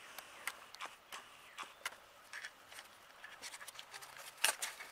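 Quiet handling noise: a scatter of light clicks and taps, a few sharper ones near the end.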